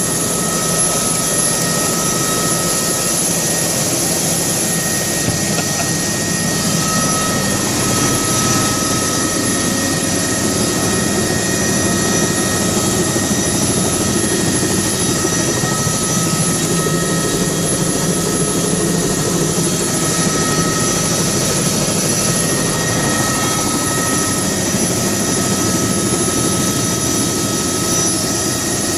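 Helicopter in steady flight: a continuous rush of rotor and engine noise with thin, steady high-pitched whines running through it.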